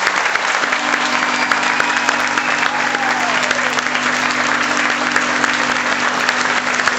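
A large audience applauding steadily, a dense continuous clatter of many hands clapping.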